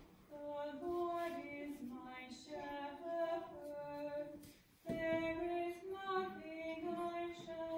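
A cantor singing the responsorial psalm unaccompanied or nearly so: a slow melody of long held notes, with a short break for breath about four and a half seconds in.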